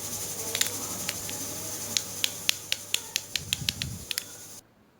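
Hard-set homemade jaggery toffee drops tapped on a plate: a run of about a dozen sharp, hard clicks that quicken to three or four a second. The click shows the toffee has set to the right hardness. A steady hiss behind them cuts off suddenly near the end.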